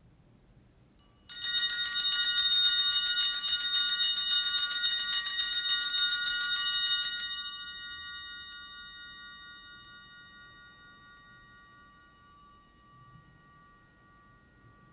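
Altar bells (Sanctus bells) shaken in rapid repeated strikes for about six seconds, starting about a second in, then left to ring and fade away. They are rung at the elevation of the chalice after the consecration at Mass.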